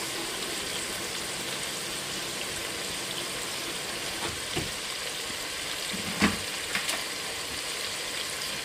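Chicken frying in a pot with tomato paste and pulao masala (the bhuna stage of chicken pulao), a steady sizzle, with a few knocks against the pot in the second half.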